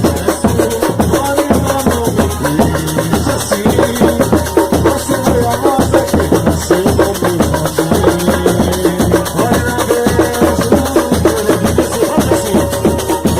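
Percussion-driven music: drums and hand percussion playing a fast, steady beat, with a melodic line moving over it.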